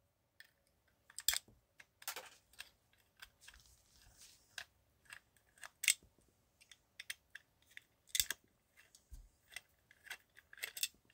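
Faint, irregular small clicks and ticks of a screwdriver backing out the screws that hold a die-cast model car to its M2 auto-lift display base.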